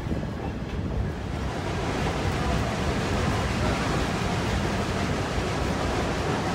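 Steady rushing noise of wind buffeting the microphone on a moving train, with the rumble of the ride underneath. It grows a little louder and fuller about a second and a half in.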